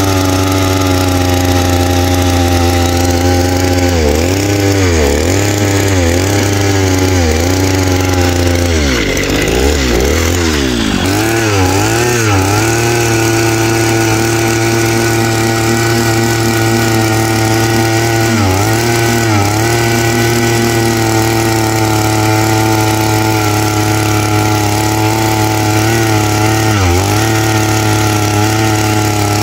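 Small two-stroke petrol earth auger running at high speed while drilling into very hard, dry soil. The engine note sags and recovers several times as the bit bites and bogs, most deeply for a few seconds around ten seconds in.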